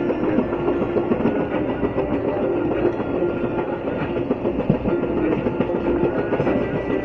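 Amaravati Express passenger train running on the rails: a steady rumble with irregular knocks of the wheels on the track and a hum that comes and goes.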